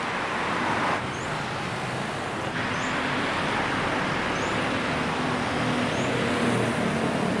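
Road traffic noise: a steady hum of passing vehicles with a low engine drone. A faint high chirp repeats about every one and a half seconds.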